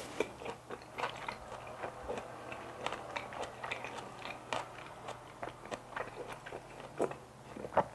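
A mouth chewing a bite of kimchi wrap, picked up close by a clip-on microphone: steady chewing with many short, irregular wet clicks of the lips and tongue.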